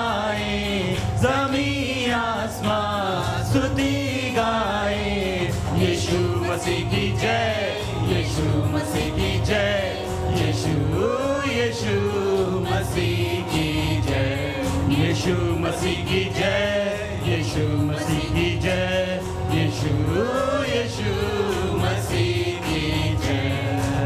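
Church choir of men's and women's voices singing a Hindi worship song together, over instrumental accompaniment with a steady beat.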